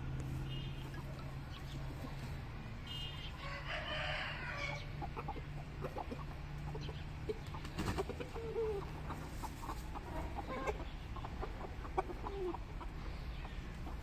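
Aseel chickens calling: a rooster crows briefly about four seconds in, and short clucks follow later, over a steady low hum.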